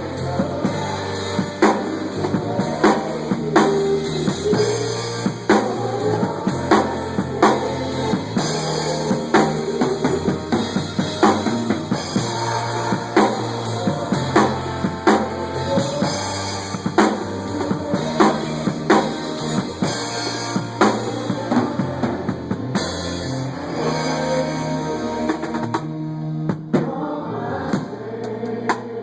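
Music with a drum kit and bass playing a steady beat.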